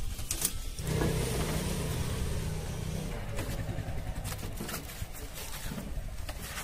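A small motorbike engine running, with a steady low hum that sets in about a second in, fading somewhat towards the end, over scattered clicks and rattles.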